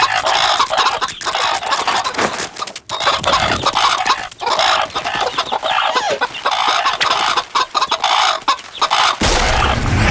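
A flock of cartoon hens clucking together, a dense, busy chatter of many birds at once; a low sound comes in about nine seconds in.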